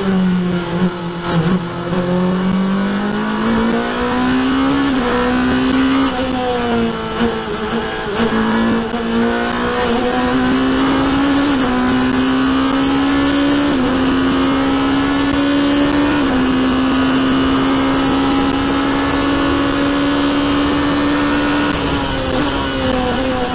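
Onboard sound of a sports-prototype race car's engine accelerating hard through the gears. The note climbs and drops briefly at each of several quick upshifts, then holds high and steady at full throttle down the straight. Near the end the pitch falls as the car brakes and shifts down.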